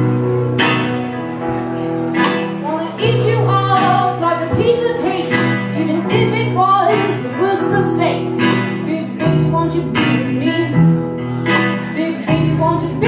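Live band playing a song: a woman singing lead over a hollow-body electric guitar, upright double bass and drums.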